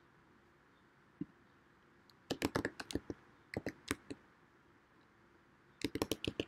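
Computer keyboard being typed on in two quick runs of keystrokes, one about two seconds in and one starting near the end, after a single lone click about a second in.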